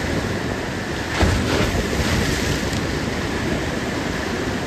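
Sea surf washing and breaking below, a steady rush of water with wind buffeting the microphone; a brief louder rush about a second in.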